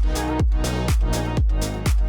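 Electronic dance music with a steady, regular kick drum, about two beats a second, and crisp hi-hats between the beats.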